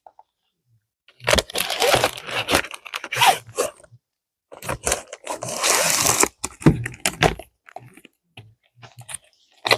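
Plastic craft-kit packaging being handled, crinkling and tearing in two long stretches, followed by a few light clicks and rustles.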